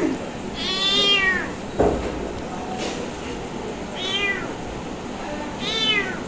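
Ginger kitten meowing three times in high calls. The first is the longest, rising then falling in pitch. A single thump comes about two seconds in.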